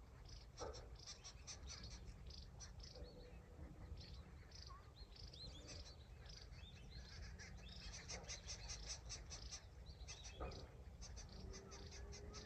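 Faint birdsong in the bush at sunrise: several birds giving quick series of high chirps and a few whistled calls, over a low steady rumble.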